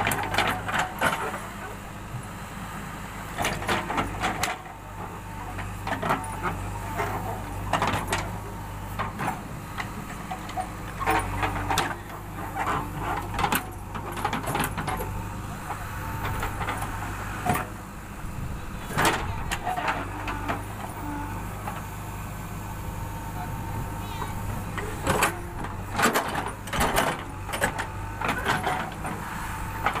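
Diesel engine of a JCB backhoe loader running steadily while the rear bucket digs and lifts soil, with repeated short knocks and scrapes from the digging.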